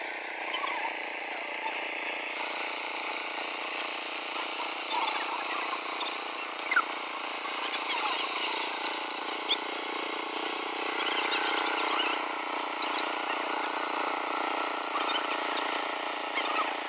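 Steady outdoor background noise with faint distant voices and scattered brief high chirps.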